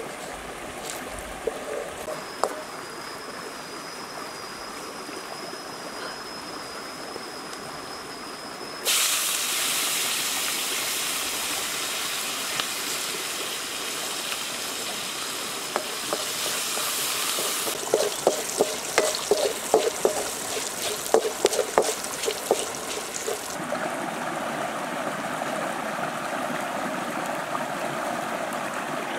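Food sizzling in a hot wok: a hiss that starts suddenly about a third of the way in and slowly dies down. Then comes a run of sharp clicks and knocks, and near the end a steady rush of a stream flowing over rocks.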